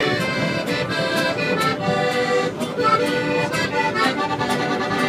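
Mariachi-style band music led by an accordion playing a melody over a steady beat of about two strokes a second.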